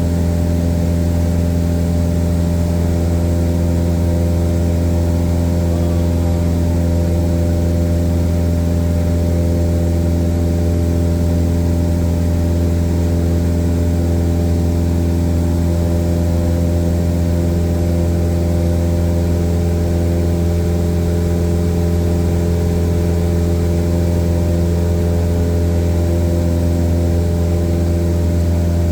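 Light airplane's piston engine and propeller droning steadily in cruise, a deep hum with a stack of steady tones above it that holds unchanged.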